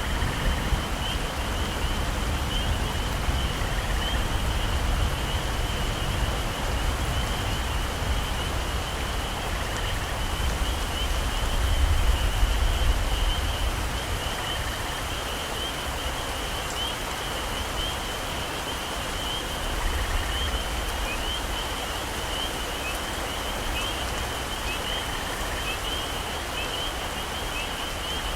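Heavy tropical rain falling steadily, with a continuous high insect chirring over it. A low rumble swells and fades about twelve seconds in.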